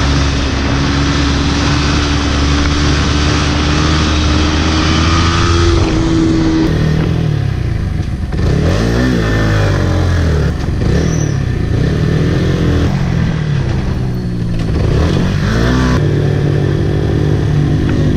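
Yamaha MT-15's 155 cc single-cylinder engine heard from on board the bike, under heavy wind rush. It holds a steady pitch at speed for the first few seconds, then its revs rise and fall again and again through the bends, and it settles to a steady pitch near the end.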